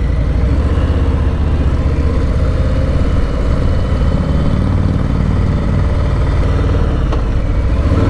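Harley-Davidson Low Rider's V-twin engine running steadily at low speed, a loud, even low exhaust pulse.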